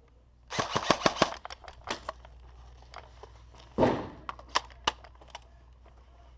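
Airsoft guns firing: a rapid string of about six sharp shots, then scattered single shots, with a longer noisy burst about halfway through.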